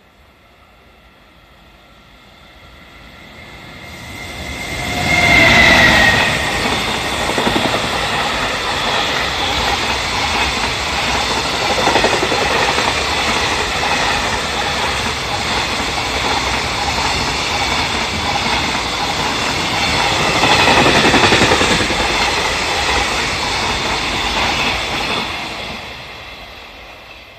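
JR Freight EF210 electric locomotive hauling a freight train through a station at speed. The sound builds, the locomotive goes by about five seconds in with a brief falling whine, and then a long string of freight wagons runs past for some twenty seconds before fading away.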